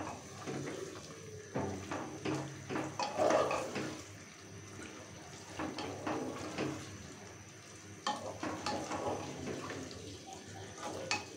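Wooden spatula stirring raw chicken pieces through thick spice paste in an aluminium pressure cooker pot: irregular wet squelches and scrapes of the spatula against the pot, quieter for a few seconds in the middle.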